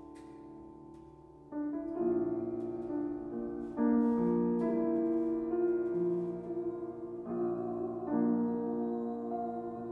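Piano playing slow, sustained chords in an improvised piece, quiet at first and swelling about a second and a half in, with the chord changing every second or so.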